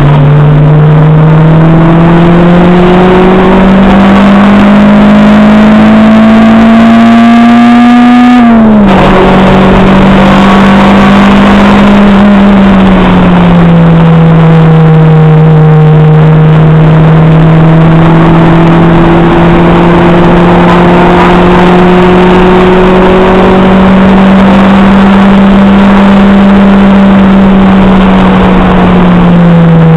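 Acura RSX Type-S's K20A2 2.0-litre four-cylinder engine under hard acceleration, heard loud from inside the cabin. The revs climb steadily, drop sharply on an upshift about eight seconds in, ease down a few seconds later, then hold high and steady, with a brief dip near the end.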